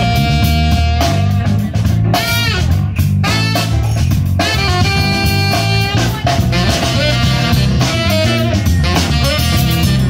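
Live jazz-funk band playing: a saxophone carries the melody over a drum kit groove and an electric bass line.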